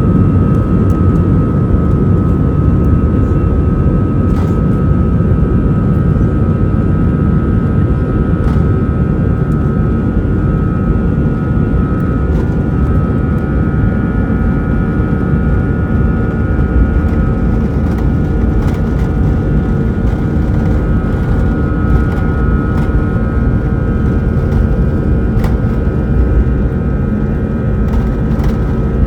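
Airbus A320 jet engines at high thrust heard inside the cabin: a steady, loud low rumble with a steady high whine over it.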